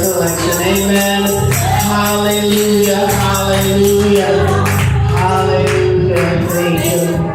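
Gospel singing by a group of voices with instrumental backing, a tambourine shaking and striking in a steady beat.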